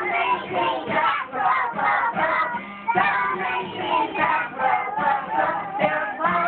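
Music with singing voices: a song playing without a break.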